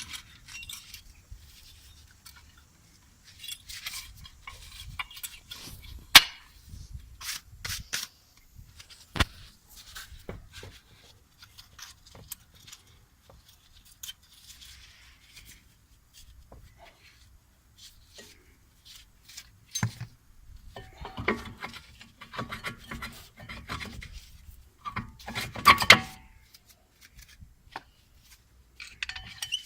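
Brake job work noises: scattered metal clicks and knocks with scraping and rubbing as tools and brake parts are handled, with a sharp knock about six seconds in and a busy cluster of clatter near the end.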